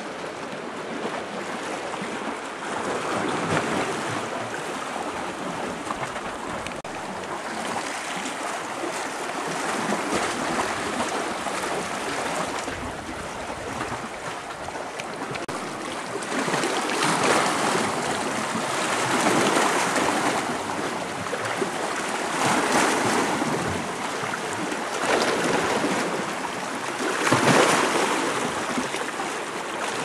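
Lake surf: small waves washing against and over shoreline rocks, rising and falling in repeated swells every few seconds, louder in the second half.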